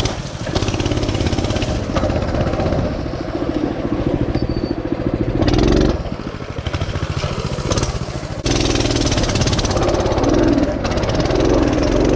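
Mini bike's small engine running, its revs rising and falling, with a couple of abrupt cuts between short clips.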